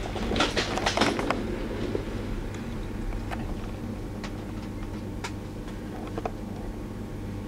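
Steady hum inside the passenger car of a limited express train stopped at a station. There is a cluster of knocks and rustles about a second in, then a few faint single clicks.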